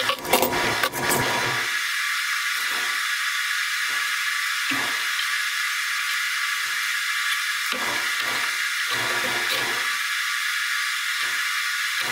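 A steady hiss throughout, with a few sharp metal knocks in the first second as a bar clamp comes off an aluminium diamond-plate pan, then scattered quieter thuds and scrapes as the pan is measured and handled on a steel table.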